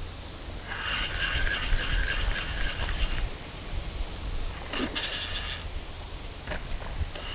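Spinning reel working while a hooked carp is played on the rod: a steady mechanical buzz of the reel's drag and gears for about two seconds starting a second in, then a shorter rasp near five seconds.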